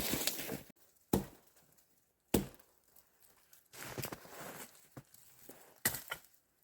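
Wood being chopped in a snowy forest: two sharp blows about a second apart, then a stretch of softer crunching and a few lighter knocks near the end.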